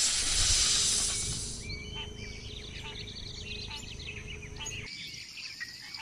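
Logo-sting sound effects: a loud hiss for about the first second and a half, then a recorded forest ambience of birds chirping and whistling to the end.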